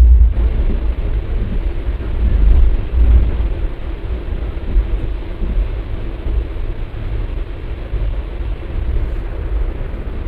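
Passenger train running, heard from a coach window: a steady rumble from the carriages, with uneven gusts of wind buffeting the microphone, the strongest around the start and about two to three seconds in.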